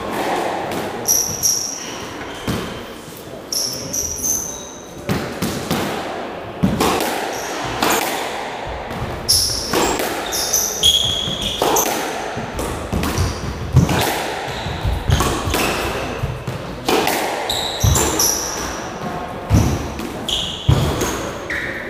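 A squash rally: the ball cracks off rackets and slaps against the walls and floor, with short sharp hits coming every second or so. Between the hits, rubber shoe soles squeak on the wooden court floor, and everything echoes in the enclosed court.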